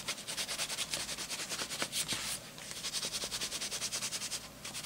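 Watercolour crayon scribbled on journal paper in quick, even strokes, a dry scratching rub with a couple of brief pauses.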